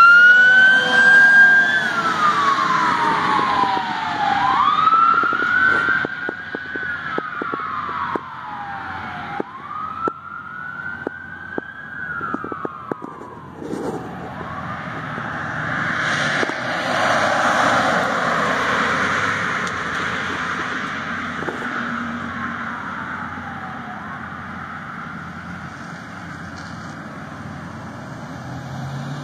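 Fire truck siren wailing, rising and falling in slow sweeps about every four to five seconds. After about fourteen seconds the wail gives way to a rush of engine and road noise from the passing truck, which swells and then fades.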